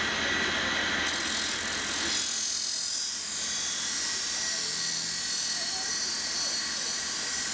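Barshop bar-dressing grinder running while the steel rails of a Stihl chainsaw bar are ground against its wheel. About a second in, a high hissing grind sets in as the rolled-over rail edges are dressed down.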